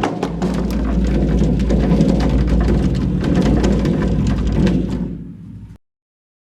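Dense crackling noise over a deep rumble from a sound-effect clip. It fades over the last second and stops dead just under six seconds in.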